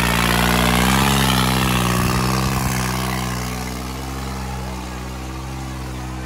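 New Holland 3630 tractor's three-cylinder diesel engine labouring hard under heavy load, a steady deep drone that gets a little quieter after about three seconds.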